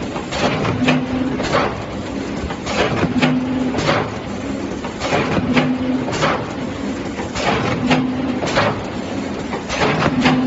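ZK-5540C automatic rigid box-making machine running through its production cycle over a steady machine din. A short hum and a cluster of sharp clacks repeat about every two and a half seconds.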